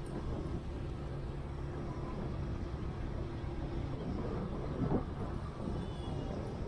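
Steady low engine rumble of a running vehicle, with a faint even hum and a brief louder sound about five seconds in.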